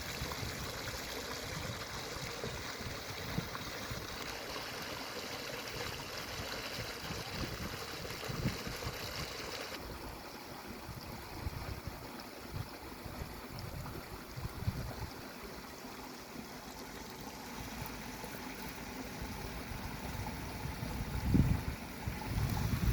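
Running water of a stream, a steady rushing that turns softer and duller about ten seconds in, with low rumbling gusts near the end.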